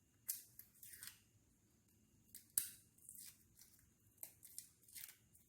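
Faint kitchen prep sounds: a run of short scraping, snipping noises, with one sharp click about two and a half seconds in.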